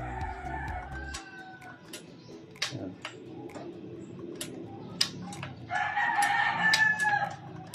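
A rooster crowing in the background, one crow trailing off about a second in and a second, louder crow from about six to seven seconds. Sharp clicks now and then come from the PCP air rifle's trigger being worked.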